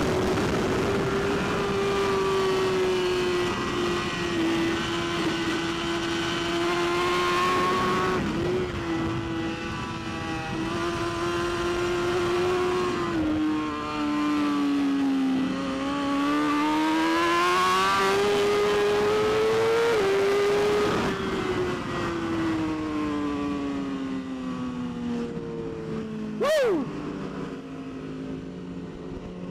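Superbike's inline-four engine running hard at speed, its revs rising and falling over several seconds with sudden drops at gear changes. Near the end there is a short, loud, sharp sweep in pitch.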